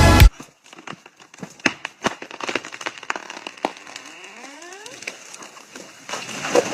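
Electronic dance music with a heavy beat cuts off abruptly just after the start. Then comes faint, irregular crackling with scattered sharp clicks and snaps.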